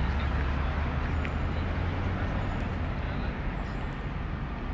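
Street traffic passing: a motor scooter's engine rumbling close by and fading away after about two seconds, over steady town noise.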